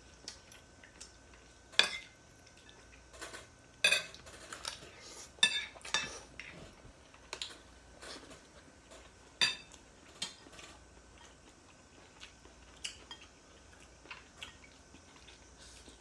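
Metal fork and spoon clinking and scraping against a ceramic plate while eating, in sharp, short clinks at irregular intervals.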